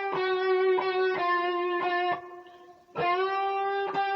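Guitar playing the blues release-bend lick: one bent note is picked again and again, roughly twice a second, then dies away about two seconds in. Near three seconds a new note comes in and slides slightly up into pitch, and the picking goes on.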